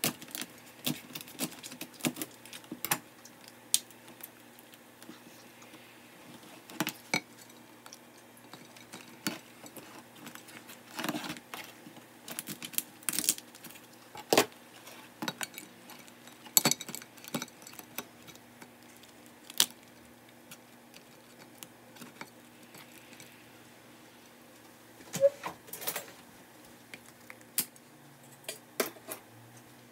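Kitchen utensils and dishes being handled: scattered, irregular clinks and knocks over a faint steady hum.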